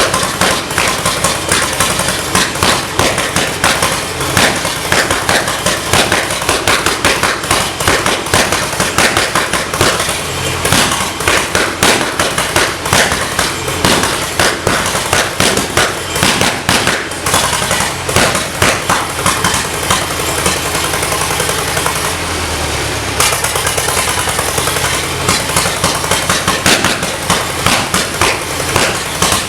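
Whitcomb locomotive's 1951 four-cylinder, 5,200 cc gasoline engine running very loud, its exhaust a rapid, steady stream of sharp cracks over a low rumble.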